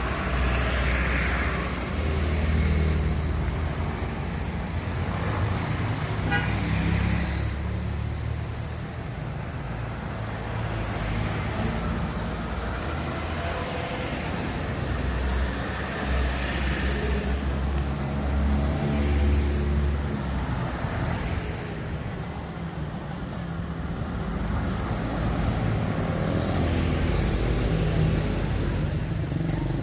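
A car driving along town streets: steady engine and road rumble that swells and eases as it moves, with passing traffic.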